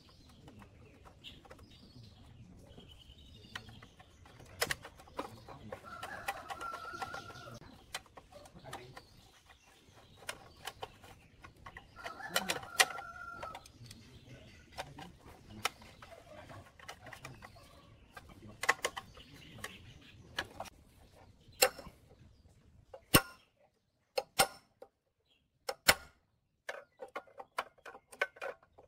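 A rooster crowing twice over scattered small metallic clicks and taps of hand-tool work. In the last seconds come several sharp hammer blows on a punch against the plate compactor's steel frame, with short pauses between them.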